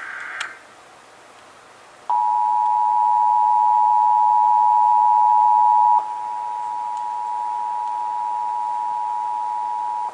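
The last of an EAS SAME header data burst, a harsh warbling digital screech, cuts off half a second in. About two seconds in the Emergency Alert System two-tone attention signal (853 and 960 Hz together) starts, a steady, loud dual tone. It drops somewhat in volume about six seconds in and runs on as the alert for a Required Monthly Test.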